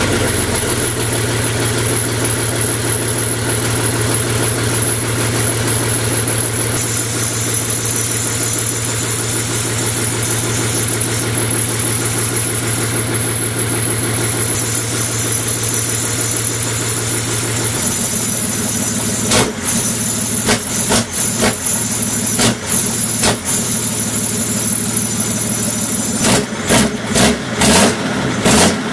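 BMW M57D30 3.0-litre straight-six common-rail diesel running on an engine stand just after its first start, with no exhaust pipe fitted, so it sounds rough, "a bit of a pig". Its note drops about two-thirds of the way through, and the sound turns uneven with repeated dips near the end.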